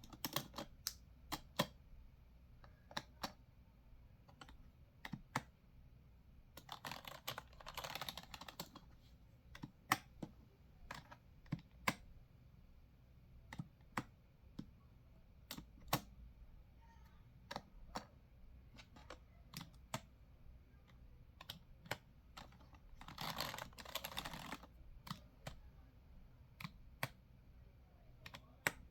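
Computer keyboard keys clicking in slow, irregular keystrokes, with two short stretches of dense, faster, louder sound, one about a quarter of the way in and one near the end.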